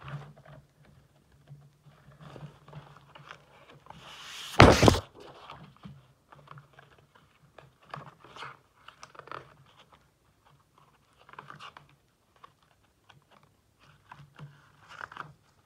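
A pad of patterned designer paper being leafed through by hand: soft rustles and light taps of sheets being turned and lifted, with one loud thump about four and a half seconds in.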